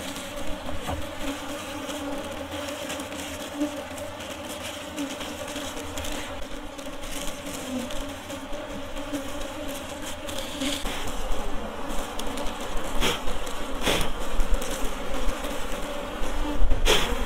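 Honey bees buzzing steadily around freshly cut honeycomb, a continuous hum from many bees. A few sharp knocks sound in the second half.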